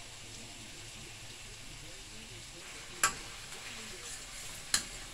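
Tomato and sweet pepper sizzling steadily in a stainless-steel pan on a gas burner, while a metal spoon stirs them and knocks sharply against the pan twice, about three seconds in and near the end.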